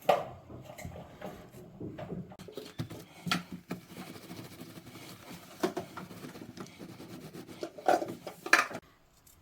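Kitchen handling while preparing oranges: soft rustling broken by irregular knocks and taps, the loudest right at the start and twice near the end.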